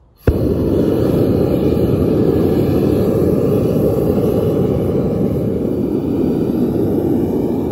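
Propane burner of a small backyard metal-melting furnace lighting with a sudden pop just after the start, then running as a loud, steady rush of flame.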